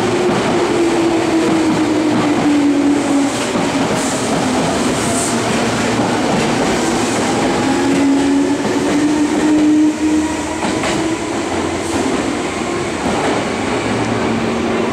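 Meitetsu 6800-series electric train pulling out and rolling past along the platform, its wheels clicking over the rail joints. A humming tone under the rolling noise falls a little in pitch, then rises again, and the sound eases off slightly near the end as the train leaves.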